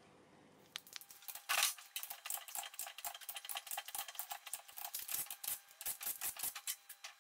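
Cordless drill spinning a socket on the nuts of an engine-block deck plate (honing torque plate): fast, irregular metallic clicking and rattling that starts about a second in, with a louder clatter near the start and a faint steady whine underneath.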